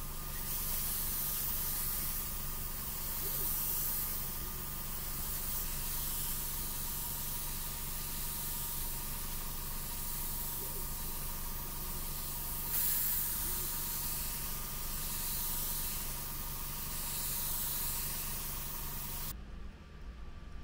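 Airbrush spraying paint: a steady hiss that swells and eases in long surges as the trigger is worked, over a steady hum. It cuts off suddenly near the end.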